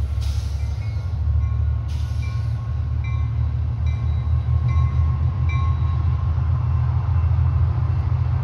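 Trinity Railway Express EMD F59PH diesel locomotive working hard as it leads a bilevel commuter train away, a loud deep steady engine rumble. A bell dings about once a second over it, and there are two short hisses, one at the start and one about two seconds in.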